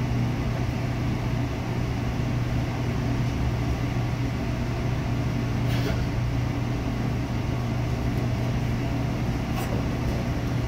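Steady low mechanical hum of commercial kitchen equipment running, with two faint ticks partway through.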